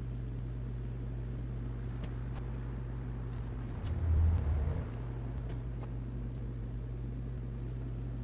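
Steady low hum with a brief louder low rumble about four seconds in, and a few faint light clicks.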